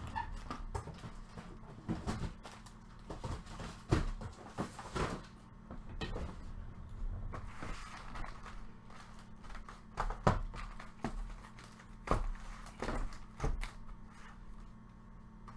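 Irregular knocks, taps and rustles of objects being handled and set down on a tabletop, the loudest about four and ten seconds in, over a steady low electrical hum.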